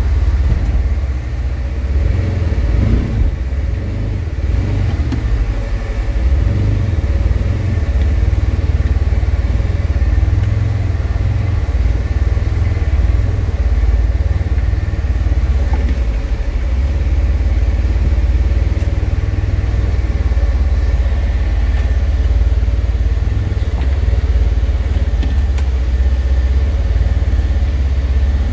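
Side-by-side UTV engine running steadily, heard from the cab while driving a dirt trail: a deep, steady drone, a little uneven in the first few seconds.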